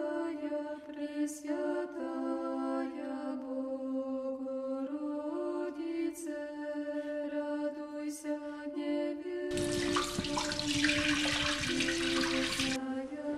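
Slow chant music with long held notes. About ten seconds in, water is poured into a stainless steel mixer bowl, splashing for about three seconds.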